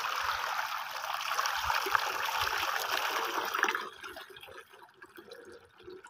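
Water poured from a plastic jug into a shallow terracotta bowl, splashing steadily for nearly four seconds, then thinning to a quieter trickle.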